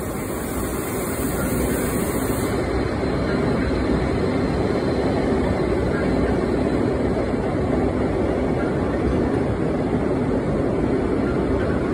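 Electric passenger trains running through an underground station: a steady rumble that builds slightly, with a faint hum in it later on, and a high hiss that cuts off about two and a half seconds in.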